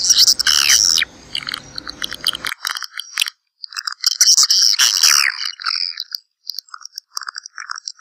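Swiftlets chirping and twittering: rapid, high, rattling trills mixed with short chirps that drop in pitch, with a brief break about three and a half seconds in.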